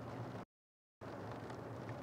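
Steady outdoor background noise through a rooftop webcam microphone: a low hum under a hiss. About half a second in, the audio drops out to dead silence for about half a second, then the noise resumes.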